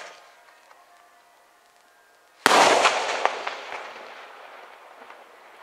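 Aerial firework shell bursting overhead in a daytime salute display: one loud sudden bang about two and a half seconds in, with a couple of smaller cracks just after and a long rolling echo that fades away.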